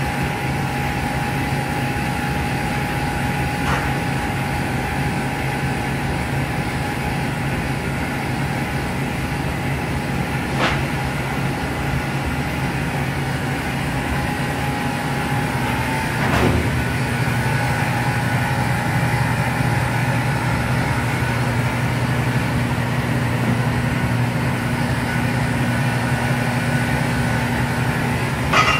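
Steady hum of a Hobart HO300E electric mini rotating rack oven running while it heats up, a low drone with a fainter whine above it. The whine shifts slightly about sixteen seconds in, with a click, and a few other faint clicks come through.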